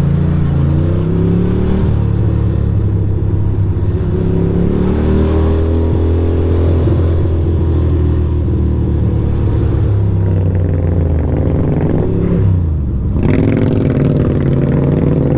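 2006 Ducati Monster 620's air-cooled L-twin engine running at low speed while filtering through traffic, its revs rising and falling with the throttle. About three-quarters of the way through, the revs drop briefly, then climb again.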